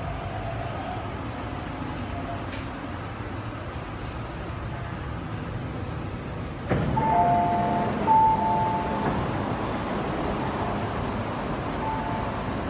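MTR East Rail Line R-Train running with a steady rumble as it comes into a station. About seven seconds in there is a sudden louder thump, followed by short beeps in two alternating pitches, which come back briefly near the end.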